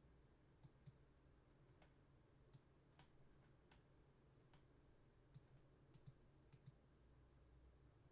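Near silence: room tone with a dozen or so faint, sharp clicks at irregular intervals.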